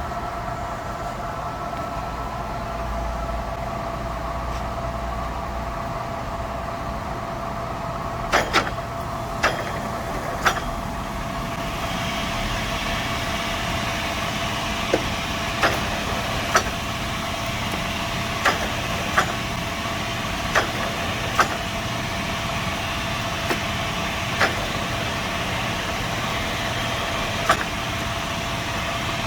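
Kingston HR 2000 heavy-duty engine lathe running under power, its headstock gearing giving a steady whine over a motor hum. About twelve seconds in the sound grows brighter and hissier, and sharp clicks come every second or two.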